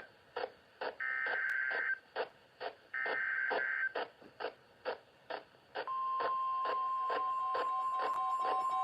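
Emergency Alert System SAME header data bursts, twice, each about a second long, then about six seconds in the steady single 1050 Hz National Weather Service attention tone starts and holds: the opening of an EAS flood warning. A regular ticking pulse, a few ticks a second, runs underneath.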